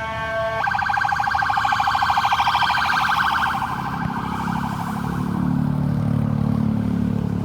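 Ambulance's electronic siren switching from a steady held tone into a fast warble, which fades out after about four seconds, leaving a vehicle engine running.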